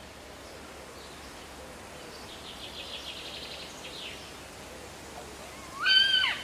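A maned wolf pup squeals once near the end, a short high-pitched cry that rises and then drops, over a quiet outdoor background. A faint rapid trill, like a small bird's, comes a few seconds earlier.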